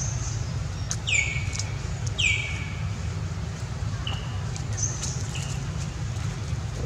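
Two high animal calls, each sliding down in pitch and lasting under a second, about a second apart, followed by a few short high chirps, over a steady low rumble.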